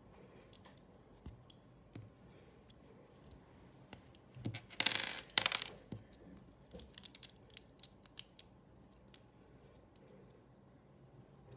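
Small plastic LEGO pieces clicking as they are handled and pressed together, with a loud clatter in two quick bursts about five seconds in: small plastic pieces landing and bouncing on a glass tabletop.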